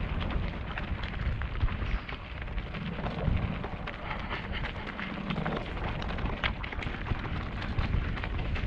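Specialized Rockhopper mountain bike rolling down a loose gravel track: knobby tyres crunching and crackling over stones and the bike rattling over the bumps, over a steady low rumble of wind on the helmet-mounted microphone.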